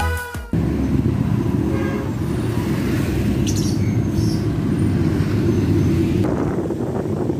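Motorcycle and car engines running in slow street traffic, heard from a motorcycle among other motorcycles, as a steady low rumble; it starts about half a second in.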